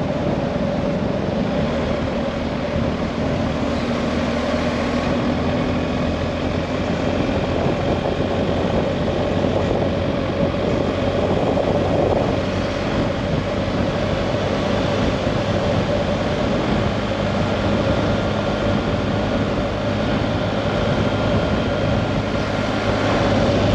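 A vehicle's engine drone, steady and unbroken, under a constant rushing noise of travel.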